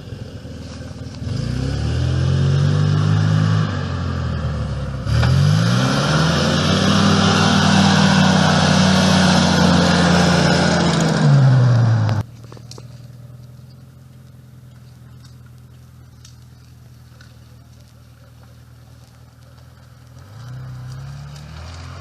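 Off-road 4x4 engine revving up and down under load, with a loud rushing noise over it for several seconds. About halfway through it cuts off suddenly to a quieter engine running steadily, which rises again near the end.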